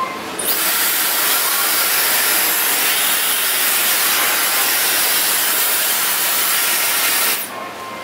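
Dyson Supersonic hair dryer with its concentrator nozzle fitted, blowing a loud, steady rush of high-pitched air. It comes on about half a second in and cuts off suddenly near the end.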